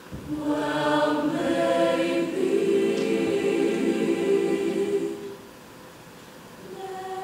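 Mixed-voice show choir singing a sustained chord in several parts without words. It swells loud for about five seconds, fades, and a quieter chord comes in near the end.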